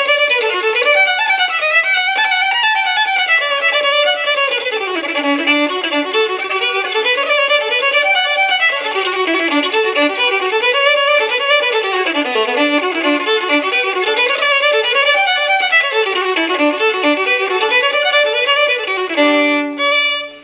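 Solo fiddle playing a traditional Irish reel: quick running notes over a steady drone on a lower string. The tune ends on a held chord about nineteen and a half seconds in and stops.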